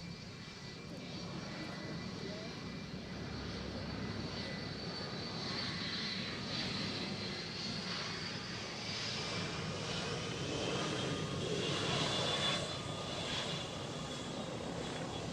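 Aircraft engines running: a steady rumble with a high whine that slowly falls in pitch, building to its loudest about twelve seconds in.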